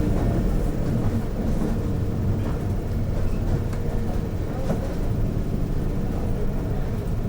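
Mercedes-Benz OF-1721 bus running on the road, heard from inside: steady drivetrain and road rumble, with the loud low engine note dropping away at the start. The bus has a growling differential, and a faint steady whine sits in the running noise.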